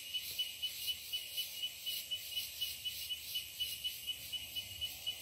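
Insect chirping in a steady rhythm: a high, pulsing tone repeating about three times a second.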